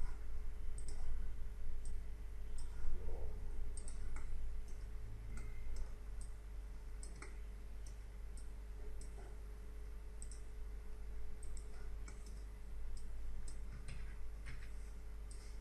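Computer mouse buttons clicking at an irregular pace, a few quick clicks a second, some in pairs, over a steady low hum.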